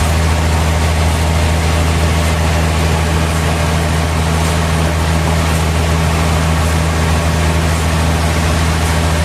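Sawmill machinery running steadily: a constant low hum under a haze of noise, with no change in pitch or level.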